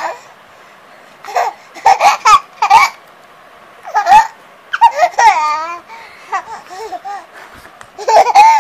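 A baby laughing and babbling in short high-pitched bursts, with a longer wavering laugh about five seconds in.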